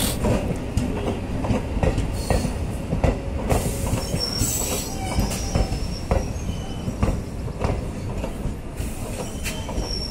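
Indian Railways passenger coaches rolling past close by: a steady rumble of wheels on the rails with repeated clicks and knocks over the rail joints. Brief high wheel squeals come about halfway through and again near the end.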